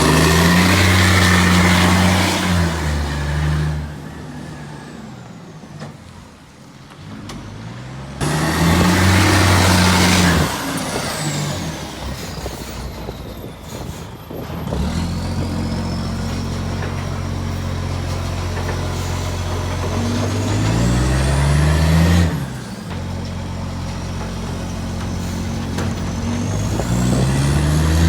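Garbage truck's diesel engine, which has an exhaust leak, revving up and dropping back about four times between stretches of steady idle, as it does when driving the bin-lift hydraulics during collection. A faint high whine rises and falls with the revs.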